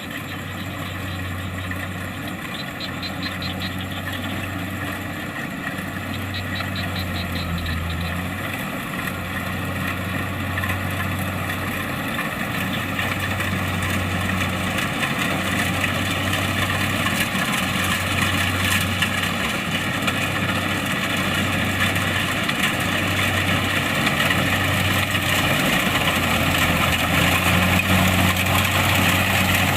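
Kubota DC70 Plus rice combine harvester's diesel engine and machinery running steadily with a low hum, growing gradually louder.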